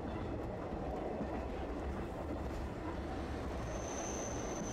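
Tram running along the line, heard from inside the car: a steady rumble of wheels and running gear. A thin, steady high whine sets in near the end.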